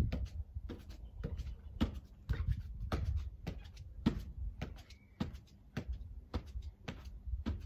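Goalkeeper gloves handling a football as it is passed through and around the legs: a run of irregular soft knocks and rustles, about two a second, over a low rumble.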